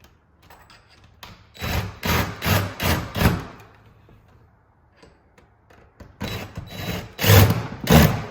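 A newly mounted doorknob lockset being shaken on the door to check that it sits firm, giving two runs of quick knocking rattles, one a couple of seconds in and one near the end.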